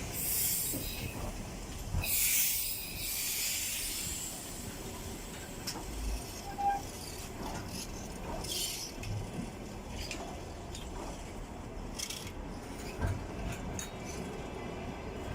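Passenger train arriving behind an EP20 electric locomotive: a steady low rolling rumble broken by several sharp hisses of air, the loudest from about two to three and a half seconds in, with a few faint clicks.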